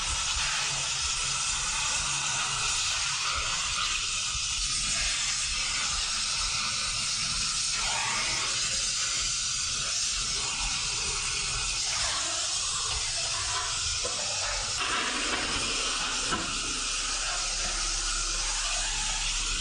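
Gas welding torch flame hissing steadily as it heats the joints of steel sofa-frame tubes while filler rod is fed in.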